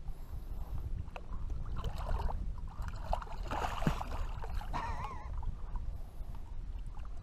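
Water splashing as a blue catfish is released over the side of a boat and thrashes at the surface, most strongly about three and a half seconds in, over a steady low rumble. A short warbling call is heard about five seconds in.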